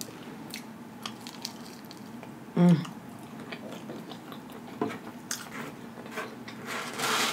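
A person chewing a mouthful of pepperoni pizza close to the microphone: soft wet mouth clicks and smacks. There is one short, louder voiced sound about two and a half seconds in.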